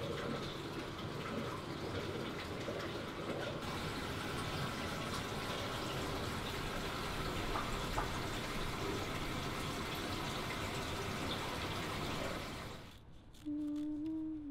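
Steady rushing and bubbling of water in a large reef aquarium tank. Near the end the water sound cuts out and a single steady held note begins, dipping slightly in pitch.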